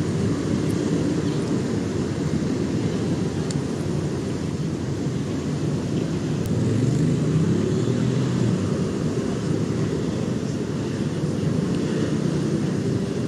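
Road traffic: a steady rumble of passing vehicles, with one engine growing louder and rising in pitch about six to eight seconds in.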